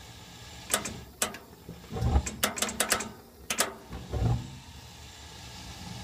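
Gas furnace burners running with a steady low hum and hiss. From about one second in to about four and a half, a quick, uneven series of sharp clicks and two dull thumps stands out above it.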